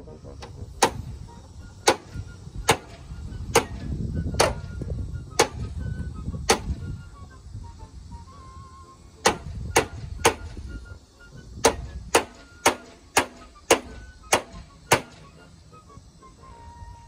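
Claw hammer striking at a roof's gutter edge: sharp strikes, about seventeen in all. A first run comes at roughly one a second, then after a short pause three quick blows, and a last run of strikes about two a second.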